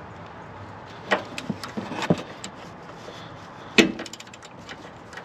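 Socket wrench turning the retaining nut of a Sumo Springs front bump stop on a Sprinter van: a few sharp metal clicks and knocks, the loudest nearly four seconds in, followed by a quick run of ratchet ticks as the nut draws tight.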